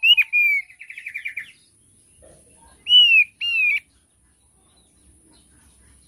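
Thick-billed heleia (opior paruh tebal) singing: a few clear whistled notes, then a quick trill about a second in, then two loud down-slurred whistles around three seconds in.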